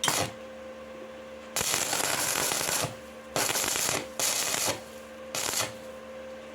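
Stick-welding arc crackling in four short bursts as tack welds are struck, the first about a second long and the others shorter, over a steady hum from the welding machine. A sharp click comes at the very start.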